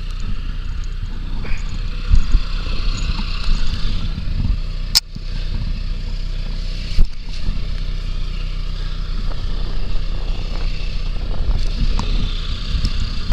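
A vehicle's engine runs steadily with a low rumble as the vehicle drives off. Sharp knocks come about five seconds in and again about seven seconds in.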